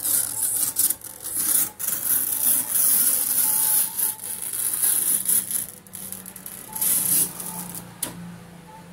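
Old polarizer film being scraped and peeled off the glass of an LCD TV panel: a hissy rasping in uneven strokes that fade over the last second or so.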